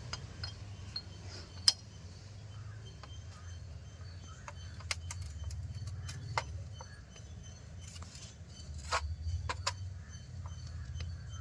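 Scattered light metallic clicks and taps of a camshaft and small engine parts being handled and seated in a motorcycle cylinder head. A sharp click comes about a second and a half in. A steady low hum runs underneath.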